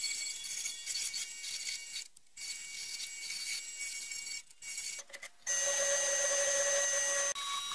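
Wood lathe turning a long pool cue, giving a high-pitched mechanical rattle with a few brief dropouts. About five and a half seconds in it changes to a steady high whine.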